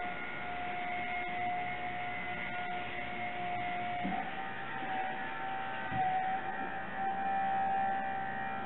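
Hydromover hydraulic drive on a tandem-axle horse trailer, whining steadily as it maneuvers the trailer. Its pitch steps up slightly about four seconds in.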